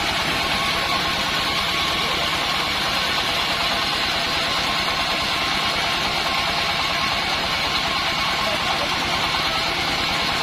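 Band sawmill running steadily: a continuous mechanical din with a few held whining tones over engine noise, with no change in pace.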